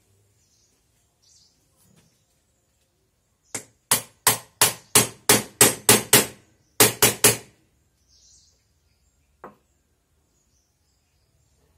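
Hammer driving a 6204 ball bearing into a trolley wheel's hub: about nine sharp metallic blows, some three a second, a short pause, then three more. One light knock follows a couple of seconds later.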